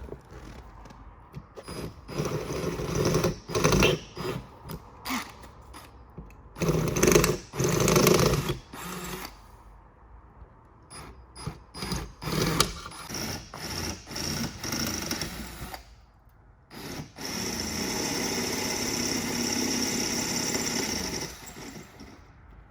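Power drill boring holes through the car body's sheet metal, running in a series of short trigger bursts and then one longer steady run of about four seconds near the end.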